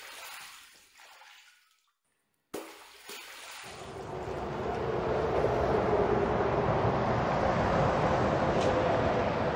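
A fading sound dies away into a moment of silence, broken by a click; then a steady rushing noise swells up over about two seconds and holds.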